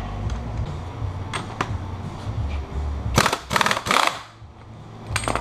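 Pneumatic impact wrench hammering on the rear axle nut of a dirt bike in three quick bursts about three seconds in, breaking the nut loose, with one more short burst near the end.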